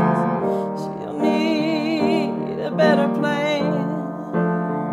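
Slow country-soul ballad accompaniment on piano or electric keyboard: sustained chords, with a held melody note wavering in vibrato twice.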